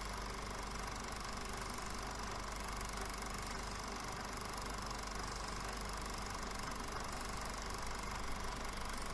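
Film projector running steadily.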